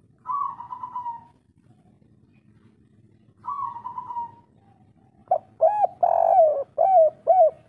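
Spotted dove cooing: two drawn-out, slightly falling coos, then a quick run of about six short rising-and-falling coos.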